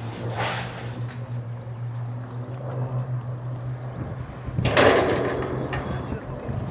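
Steady low drone of the Avro Lancaster's four Rolls-Royce Merlin V12 engines in flight overhead. Small birds chirp repeatedly over it, and a loud harsh burst of noise comes about four and a half seconds in.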